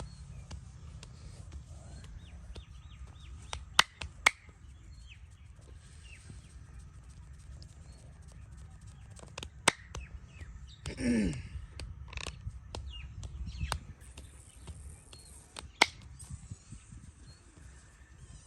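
Four loud, sharp smacks of hands on a person during a head and back massage, the second following the first closely. Birds chirp throughout over a steady low rumble, and about eleven seconds in there is a short sound that slides down in pitch.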